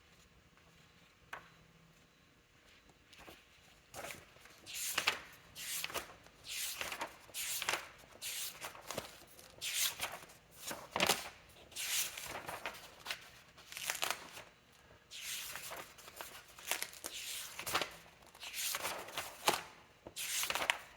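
Hands rummaging and shuffling things about while searching for a lost part, with a string of irregular rustles and scrapes starting about four seconds in.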